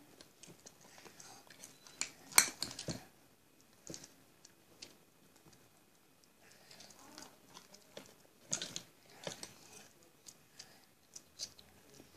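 A spoon clicking and scraping against a glass bowl as sticky, unfinished homemade slime is stirred and pulled, with a louder clatter of clicks about two seconds in and again past the eight-second mark.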